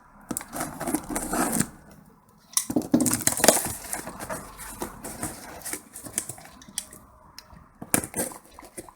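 A cardboard parcel being opened by hand: cardboard and packing paper crackling and rustling in uneven bursts, with clicks and knocks, loudest about three seconds in.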